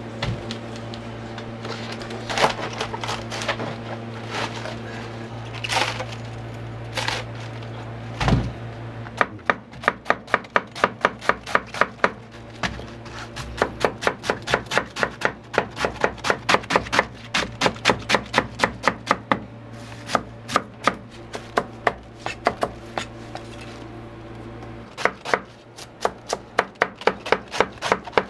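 Kitchen knife chopping on a cutting board: a few scattered knocks at first, then a fast, even run of strikes, about three a second, which pauses briefly and starts again near the end. A steady low hum runs underneath.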